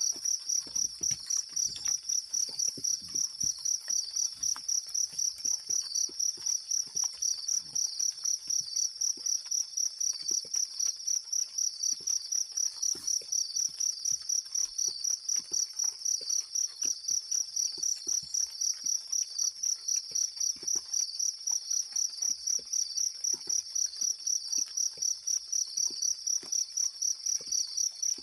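An insect chirping steadily in an even pulse of about three chirps a second, high-pitched, with faint scattered ticks underneath.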